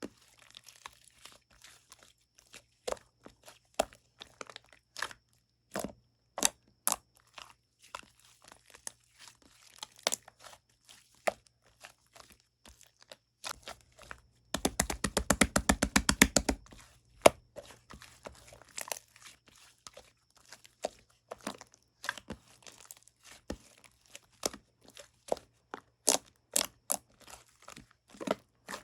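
Light-green slime being squeezed and pressed by hand, giving scattered crackling clicks and pops, with a quick run of louder pops lasting about two seconds about halfway through.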